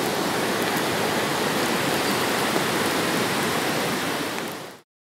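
Steady, even rushing of water, like heavy rain or a torrent, that cuts off suddenly near the end.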